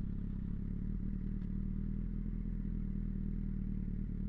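Large-displacement motorcycle engine running steadily at idle speed, pulling the bike along in second gear with no throttle applied; the note holds even, with no revving.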